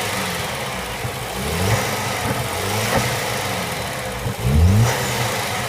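VW/Audi turbocharged engine running with a loud, steady rushing surge from the air filter, the engine note rising and falling several times and most strongly near the end. The surge is the sign of a weak N249 turbo diverter valve that cannot hold itself closed.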